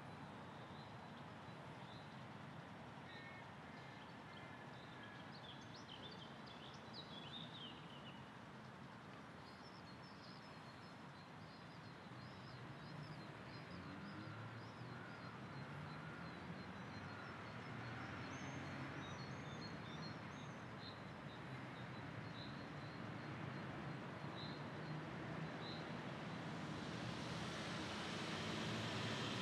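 Outdoor ambience of small birds chirping, with a motor vehicle's engine rumble rising through the second half and loudest near the end.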